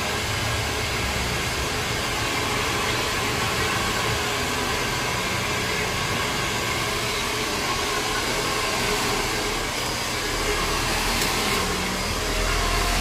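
Hair dryer blowing steadily, a continuous rushing of air.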